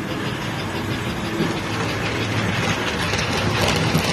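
American Flyer S gauge model train running on its track: a steady electric motor hum with wheels rattling and clicking over the rails, getting louder near the end as the passenger cars pass close by.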